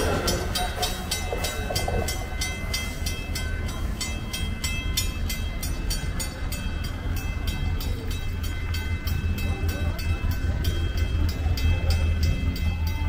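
Train passing: a steady low rumble with rapid, even clicking of about three or four a second and a few steady high tones above it.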